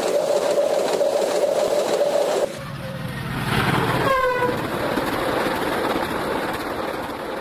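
Intercity passenger trains running past at speed, the coaches making a steady rushing noise on the track with a steady whine in the first part. After a cut, a second passing train gives a short horn blast that drops in pitch as it goes by, and its running noise fades toward the end.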